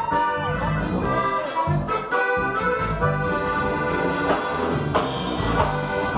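Live norteño band playing: an accordion carrying the melody over guitar and a drum kit.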